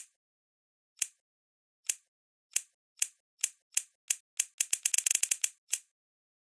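A series of sharp, crisp clicks, about a second apart at first and coming faster and faster until they run together into a rapid clattering flurry, then one last single click.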